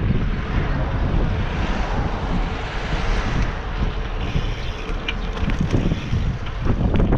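Wind buffeting an action camera's microphone as the bike rides along, a steady rumbling rush that brightens a little about two to three seconds in.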